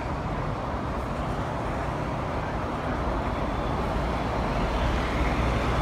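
Steady road traffic on the highway beside the platform. A low rumble builds in the second half as a train approaching the station draws nearer.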